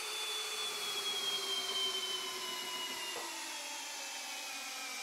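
Flex 24V brushless hammer drill on low speed driving an auger bit down through stacked lumber. The motor whine falls slowly in pitch while it bores.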